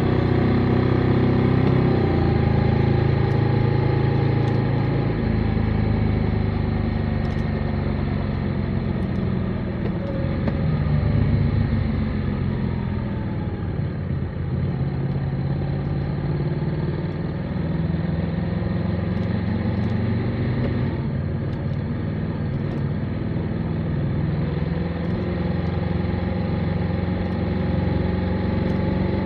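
Motorcycle engine running as the bike is ridden, its note rising and falling with changes in revs and speed.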